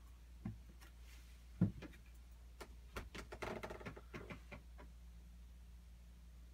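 Quiet handling and movement noises over a steady low hum: two dull thumps, the second louder, then a run of light clicks and rustling lasting about two seconds.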